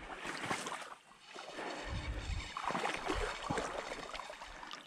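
Water sloshing and splashing irregularly around someone wading in a river, with a few dull low knocks.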